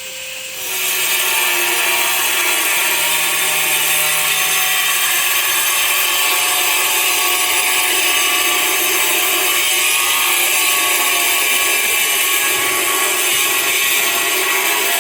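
A power tool or small motor starts up about a second in, then runs steadily and loudly with a high-pitched, unchanging whine.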